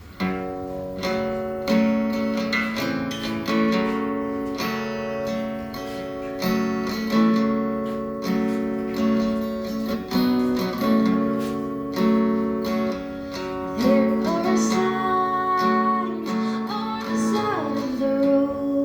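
Acoustic guitar playing a song's intro, strummed chords in a steady pulse. A singing voice comes in about fourteen seconds in.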